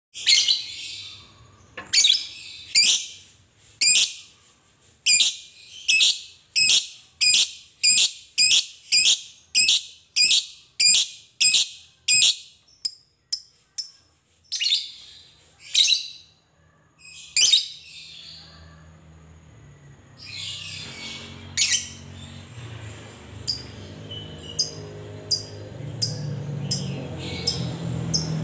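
Fischer's lovebird giving loud, shrill calls in a quickening series for about twelve seconds, then scattered calls with pauses. A steady low hum comes in about two-thirds of the way through, under a few softer chirps.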